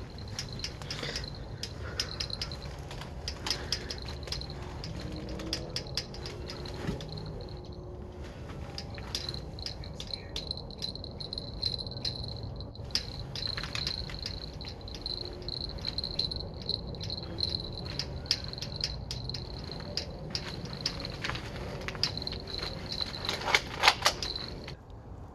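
Crickets trilling steadily at night in one high thin tone, with scattered sharp clicks and knocks throughout and a brief cluster of louder knocks near the end.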